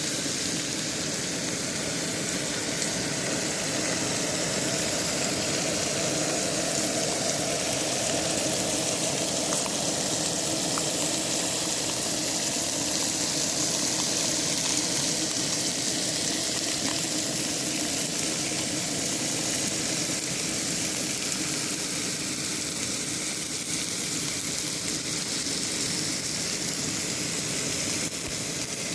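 Tomahawk steaks sizzling as they cook, a steady hiss with a few faint pops.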